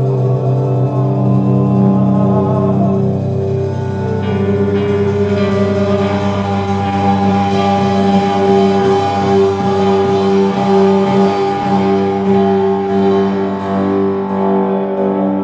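Live rock band playing: electric guitars holding long sustained notes over drums.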